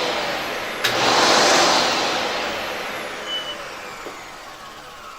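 Hoover Hushtone 15 commercial upright vacuum cleaner running with a steady hiss. There is a sharp click about a second in, then its motor whine falls in pitch and fades.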